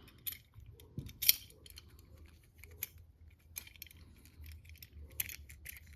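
Light clicks and taps from a car door handle and its gasket being handled and fitted together, loudest about a second in.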